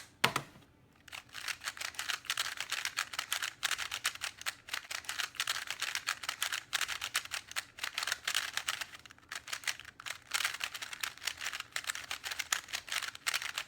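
Stickerless 3x3 Rubik's-type cube being turned fast by hand: a rapid, uneven run of plastic clicks and clacks from the layers, starting about a second in, with a brief pause about nine seconds in. It is a new cube that still needs to be worked in.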